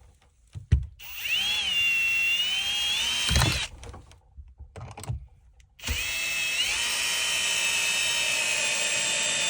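Power drill driving a screw into wood in two runs, each spinning up with a rising whine and then running steady, the second starting about halfway through.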